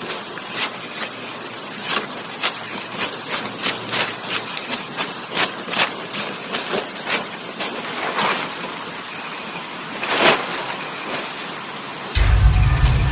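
Irregular sharp cracks and crunches, roughly two a second, over a steady high insect drone. About twelve seconds in, a loud low hum starts suddenly.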